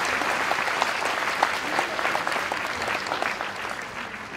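Audience applauding after a choir's song, the clapping dying down near the end.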